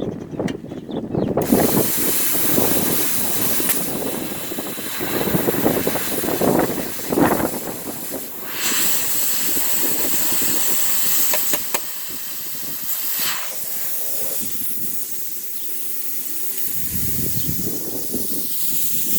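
Plasma cutter torch hissing steadily as compressed air blows through it, starting about a second and a half in, with irregular crackling and knocks underneath. The cutter is not cutting properly, which the operator takes for a possible bad ground.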